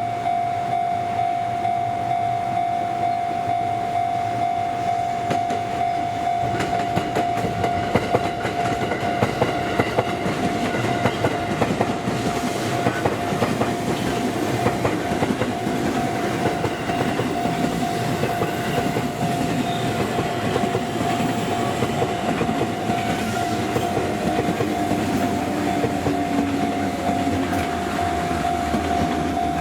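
A level-crossing alarm sounds one steady tone throughout. Under it, a JR Central rapid train of 211-series and 313-series electric multiple units runs past with a rushing noise, its wheels clacking over rail joints. The clacking is thickest about a quarter to halfway through.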